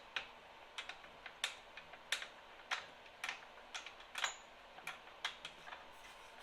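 Light, sharp metallic clicks and taps, irregular at about two or three a second, from the snowblower's discharge-chute hardware (pins, wing nut, fittings) being worked loose by hand.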